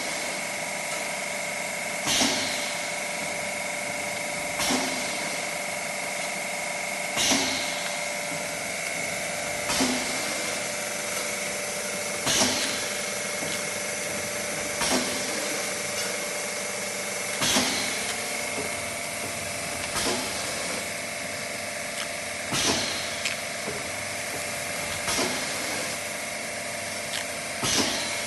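Vertical paste packaging machine running through its bag cycle: a steady machine tone with a sharp clunk about every two and a half seconds as the horizontal sealing and cutting jaws close on each ice gel bag.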